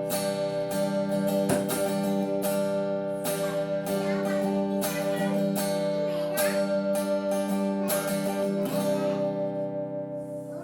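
Guitar chords strummed again and again, the notes ringing on between strokes, with a change of chord near the end.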